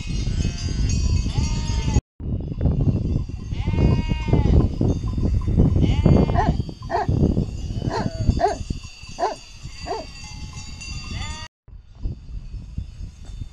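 A flock of sheep bleating, many short wavering calls overlapping, thickest in the middle, with bells in the flock ringing steadily high above and a low rumble underneath. The sound cuts out briefly twice, about two seconds in and near the end.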